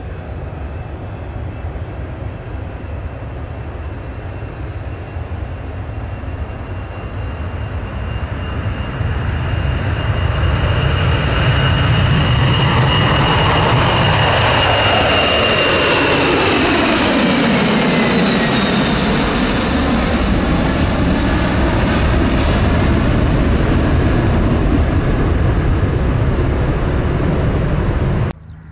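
Boeing 747's four jet engines as the jumbo passes close by. A roar builds up over the first ten seconds with a high whine over it, and about halfway through the whine and the roar fall in pitch as the jet goes past. A loud steady roar follows until the sound cuts off suddenly near the end.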